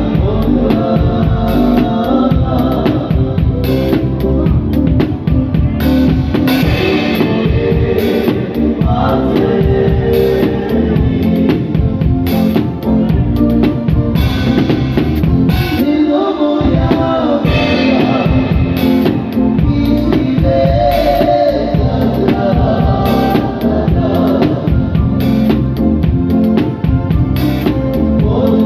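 Loud live band music with a drum kit played hard and busily under it, the drum strokes packed close together throughout.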